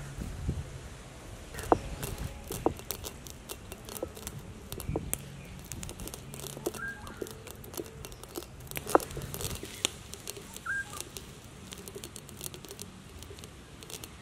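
Stone roller crushing peppercorns on a flat grinding stone: a low gritty rolling of stone on stone with many sharp cracks and crackles as the peppercorns break. A bird chirps briefly twice, about halfway through and again a few seconds later.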